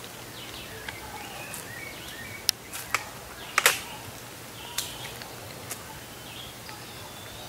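Break-barrel air rifle being loaded and readied: a few light metallic clicks, then a sharp clack a little over three and a half seconds in as the barrel is snapped shut. Birds chirp in the background.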